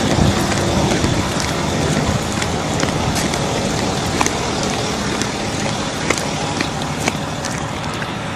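Steady rushing outdoor noise, with faint, irregular clicks of flip-flop footsteps on pavement about once a second.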